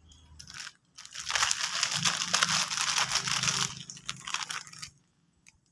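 Salt being added to the remedy: a dense crackling, rustling sound that starts about a second in, lasts about three seconds and fades away.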